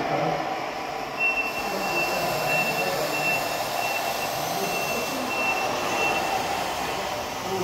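Electric motors of radio-controlled model construction machines running against a steady mechanical background, with a thin high whine that cuts in and out from about a second in until about six seconds.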